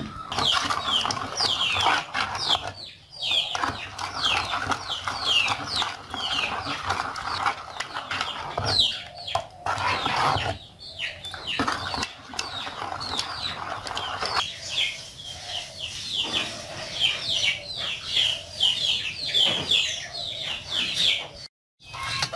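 Chickens clucking and peeping, a string of short, high, falling calls repeated over and over.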